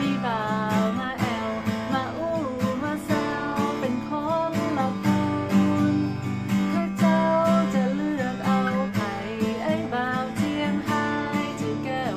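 Deviser steel-string acoustic guitar strummed in a steady chord rhythm, with a woman's voice singing a melody along with it.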